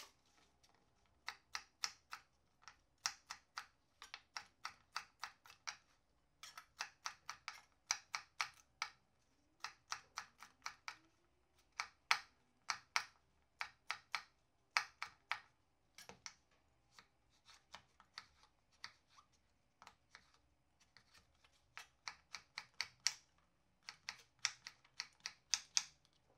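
Kitchen knife striking a cutting board while dicing red bell pepper and then zucchini: quick runs of sharp taps, about three to four a second, broken by short pauses.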